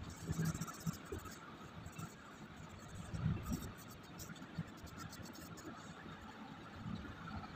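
Cloth and fingertips rubbing over drawing paper as graphite shading is blended, a soft scratchy brushing in quick strokes. Several dull low knocks come through, the loudest about three seconds in.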